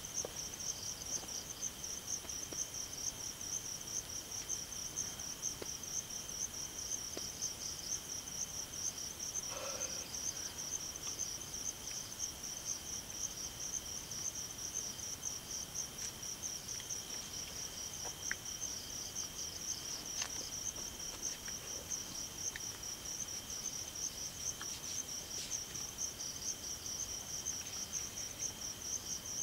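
A chorus of night insects chirring without a break: a high, rapid pulsing trill over a steadier high tone. A few faint clicks and a soft knock come through it, one of them about ten seconds in.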